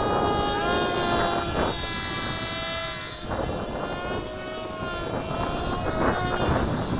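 Electric RC model airplane's motor and propeller whining, the pitch rising and falling several times as the throttle changes.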